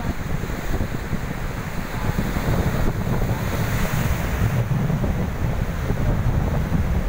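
Heavy sea surf breaking and washing over rocks, with wind buffeting the microphone as a steady low rumble.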